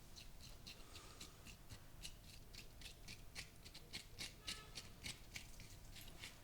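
Barber's hands working a client's head and face in a massage: a faint, quick, irregular run of soft, crisp clicks and snaps, several a second.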